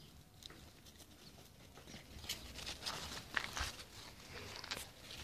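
Puppies moving about and playing: a run of short scuffs and clicks, busier from about two seconds in.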